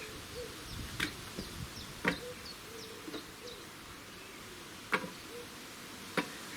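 Pieces of kindling wood knocking as they are dropped into a clay tandoor, four separate knocks. Birds chirp faintly in the background.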